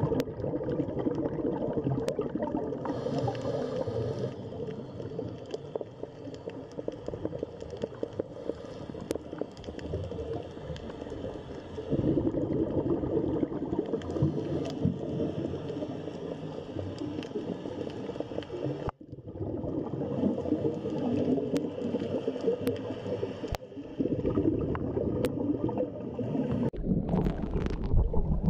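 Muffled underwater ambience picked up by a camera in its housing: a low water rumble with gurgling. The level and character change abruptly several times.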